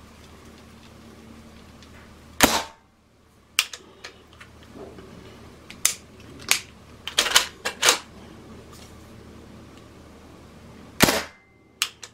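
Hatsan Blitz .22 PCP air rifle firing a single shot about two seconds in and another near the end, with smaller mechanical clicks of the action and magazine being handled between them. It chokes out after each shot instead of cycling in full auto.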